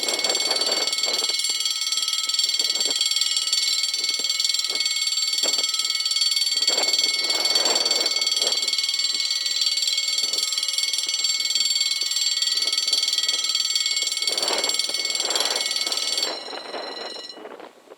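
French level-crossing warning bells ringing continuously, a high, steady electric ring, signalling that a train is approaching and the barriers are coming down; the ringing cuts off about sixteen seconds in.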